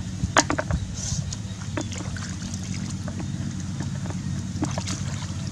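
Hands splashing and squelching in shallow muddy water as someone gropes through the mud, in scattered short splashes, the loudest about half a second in. A steady low rumble runs underneath.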